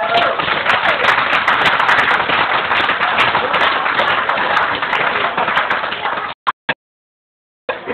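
Audience applauding, a dense patter of many hands clapping, which cuts off suddenly about six seconds in, leaving over a second of dead silence.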